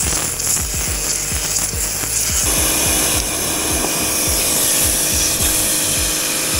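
Pressure-washer jet hissing against a bare aluminum car body shell as mud is blasted out of it, over background music with a steady beat.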